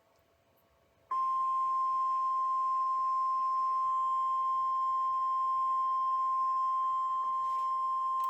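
A single steady alert tone of about 1 kHz starts about a second in and holds at an even level. It is the NOAA Weather Radio warning alarm tone, sounded ahead of a new severe weather warning.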